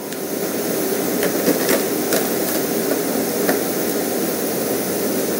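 Steady rushing background noise with a few faint clicks and taps from handling a USB cable, an Arduino Uno board and an RFID reader module.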